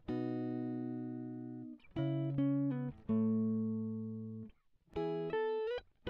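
Background music: a plucked-string melody of notes and chords, each struck sharply and left to fade, in short phrases with brief pauses between them.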